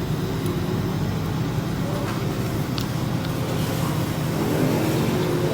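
Heavy diesel engines of road-paving machinery running steadily, with a low, even drone.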